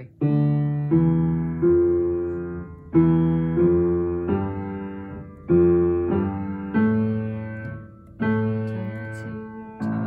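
Piano played slowly with both hands: notes and chords struck about once a second, each left to ring and fade before the next.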